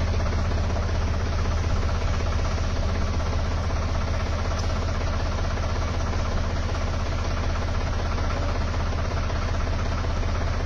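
Farm tractor's diesel engine idling steadily at low revs.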